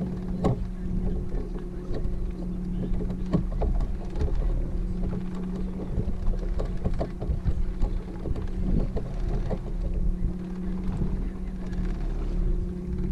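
Boat motor running steadily with a low hum, with wind and irregular knocks against the boat.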